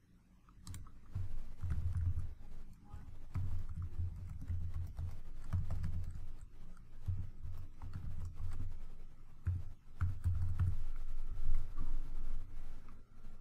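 Typing on a computer keyboard in irregular bursts, key clicks with dull thumps under them.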